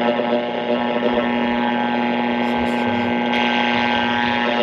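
Panasonic R-1551 AM radio's speaker giving a loud, steady hum with many overtones. A band of hiss joins it about three seconds in.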